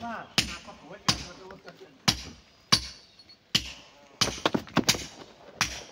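Steel hand hammer striking stone, sharp ringing strikes roughly once or twice a second, with a quick run of lighter blows about four seconds in.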